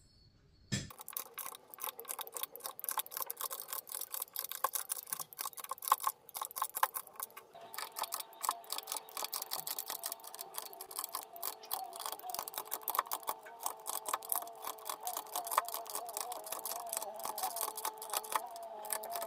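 Rapid, continuous plastic clicking and clacking from a computer keyboard's keys being worked. A wavering steady tone joins about seven seconds in.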